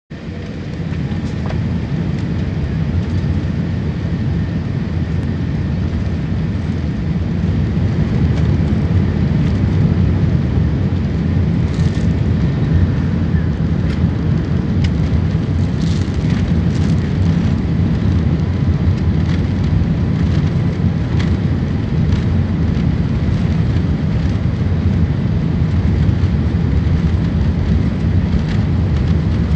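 Jet airliner rolling along the runway, heard from inside the cabin: a steady, loud, deep rumble of engines and wheels that grows a little louder over the first several seconds.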